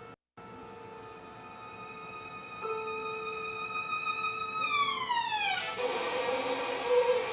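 Bowed strings, violin and cello, holding long sustained notes in a contemporary chamber piece. A second line enters louder about two and a half seconds in, then slides steeply downward in pitch around the fifth second, giving way to a scratchier, noisier bowed texture over the held note. The sound drops out for a split second at the very start.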